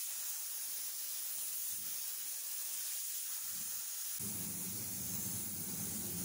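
Steady hiss of a gravity-feed spray gun atomising red oxide epoxy primer. A low hum joins it about four seconds in.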